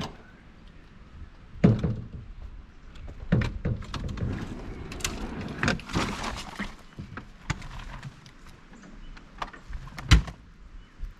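Irregular knocks and thumps of things being handled and set down, with a busier patch in the middle and a loud thud near the end.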